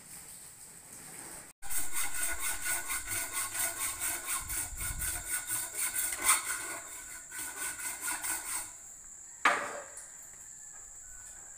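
Rapid, rhythmic back-and-forth scraping strokes, several a second, from hand-tool work on a steel rebar mesh; they stop a little before nine seconds in. A single sharp knock follows, over a steady high insect trill.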